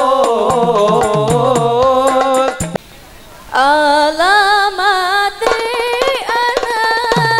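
Background sholawat (Islamic devotional) music: a wavering melodic line over a steady drum beat, which breaks off for under a second about three seconds in and then resumes.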